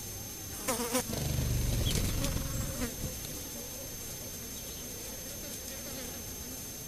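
A flying insect buzzing close by: loudest for a couple of seconds starting about a second in, then a fainter steady hum. A couple of light clicks come just before the loud part.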